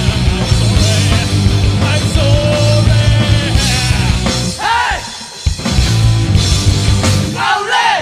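Rock music soundtrack with singing. The drums and bass drop out briefly about halfway through and again at the end, leaving a gliding vocal line.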